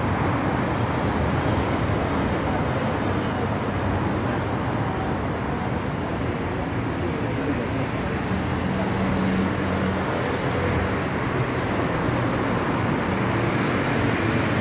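Steady city street traffic noise, with faint voices mixed in and a low engine hum coming up for a couple of seconds about eight seconds in.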